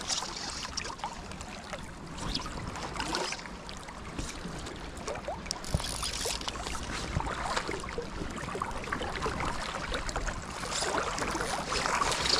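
Creek water flowing and rippling over a shallow stony bed, a steady rush that swells a little louder now and then.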